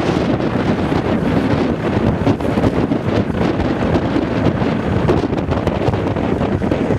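Loud wind buffeting the camera microphone, a dense, irregular rumble.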